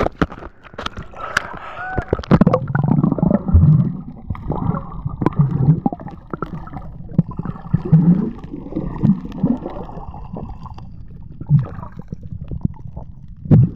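Water gurgling and sloshing, heard muffled through a camera held underwater, with scattered clicks and knocks.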